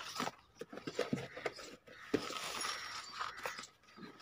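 Scattered light clicks, knocks and clinks with a stretch of rubbing in the middle, as hands work a motorcycle inner tube into the tyre on a spoked rim.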